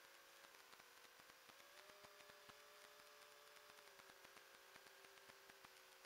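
Faint motor whine of a Mobula tiny-whoop FPV drone, picked up by its onboard camera. The pitch steps up and down a few times with the throttle, under hiss and crackling static.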